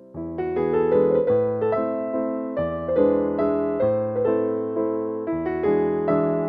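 Background music played on a piano-like keyboard: chords and a melody of struck notes that ring and fade. A louder phrase comes in just after the start.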